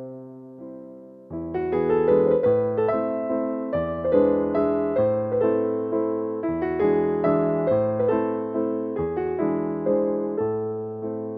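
Background music: gentle electric piano playing a flowing line of notes and chords, thin at the start and fuller from about a second and a half in.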